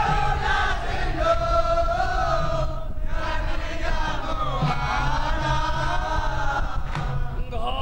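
Group kirtan singing of a Bengali devotional bhajan: a chorus of voices holds long, sliding melodic lines, with a steady low accompaniment underneath.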